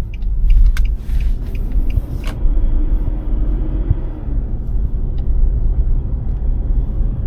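Car road noise from inside a moving car: a steady low engine and tyre rumble, with a few sharp clicks in the first two seconds.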